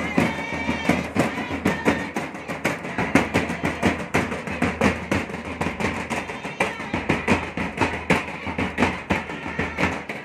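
Large folk drum beaten with a stick in a fast, dense rhythm of closely spaced strokes.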